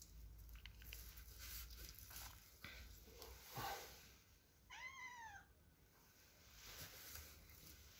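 A cat meows once, a faint single meow about five seconds in that rises and falls in pitch. Soft rustling and small clicks of handling come before it.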